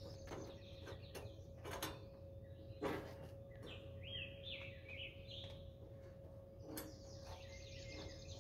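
Faint clinks and knocks of metal as stainless steel burner tubes and a channel-iron rail are shifted and settled by hand inside a gas grill's firebox, the loudest a little before three seconds in. A bird chirps a quick run of rising notes in the background around the middle, over a faint steady hum.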